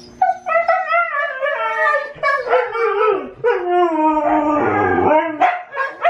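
Siberian huskies 'singing': long, wavering howls that glide up and down in pitch, with a second dog's voice overlapping, stopping about five and a half seconds in.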